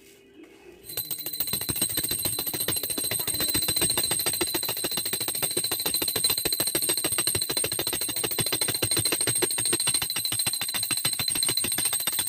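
Hand-held puja bell (ghanti) rung rapidly and without pause during the aarti, a dense fast jangle of strikes over a steady high ringing tone. It starts about a second in and cuts off at the end.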